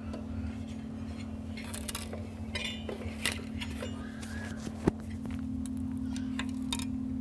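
Scattered light clinks and clicks of small hard objects being handled, with one sharper knock about five seconds in, over a steady electrical hum.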